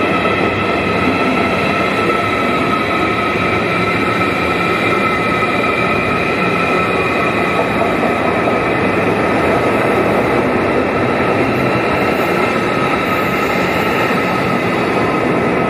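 ICE high-speed train running along the platform of an underground station: a continuous, even rush of wheels and running gear with several steady high-pitched tones over it.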